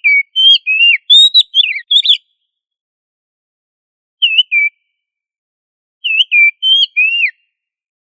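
Oriental magpie-robin (kacer) singing a varied whistled song: a quick run of clear, sliding notes lasting about two seconds, then a short two-note phrase about four seconds in and another run of several notes near the end, with silence between.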